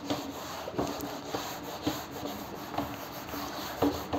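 A felt board duster rubbing across a whiteboard to erase marker writing, in a series of soft, short wiping strokes.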